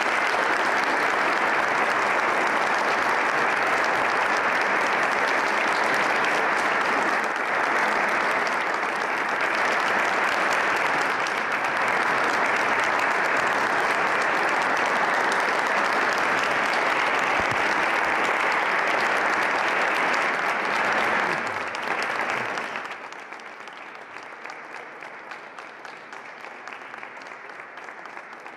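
Theatre audience applauding at a curtain call, a steady dense clapping; about three-quarters of the way through it drops sharply to a quieter level and continues.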